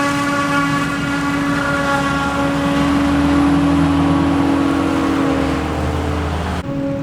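Steady engine hum with a constant pitch over a low rumble, changing abruptly near the end.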